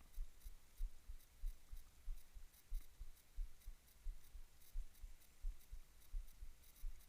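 Fishing reel being cranked during a lure retrieve: a quiet, regular ticking with soft thumps, about three times a second.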